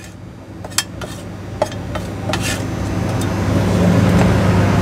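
A few sharp clicks of metal utensils, then kokoreç sizzling on a hot flat-top griddle, growing louder from about two seconds in, over a steady low hum.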